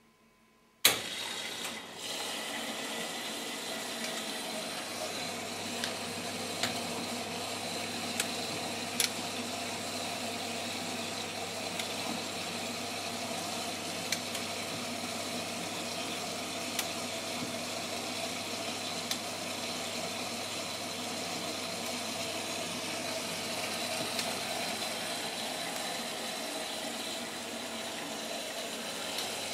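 Siemens Siwamat 960 washing machine filling for its main wash: a sudden loud clack about a second in, then water running steadily into the machine, with a low hum and a few light clicks.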